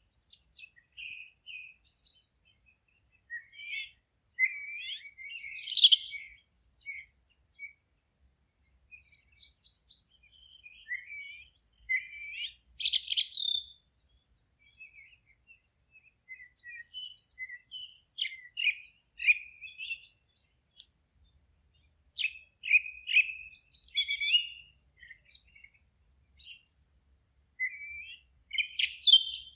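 Forest songbirds chirping and singing in short, high, scattered phrases and trills, several birds overlapping at times, with brief quiet gaps between calls.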